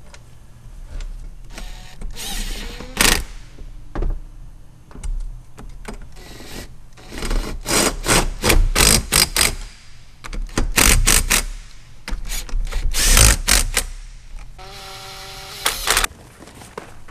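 Cordless power driver run in repeated short bursts, driving the bolts that hold the fuel rail and injectors to an intake manifold, with a brief steady motor whine near the end.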